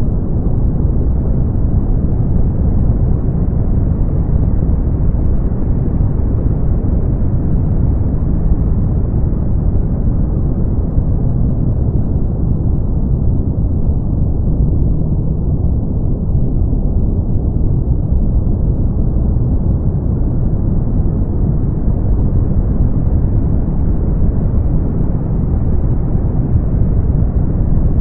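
Brown noise: a steady, deep rushing noise with no tones or rhythm, its weight in the low end. It turns a little duller around the middle and slightly brighter again toward the end.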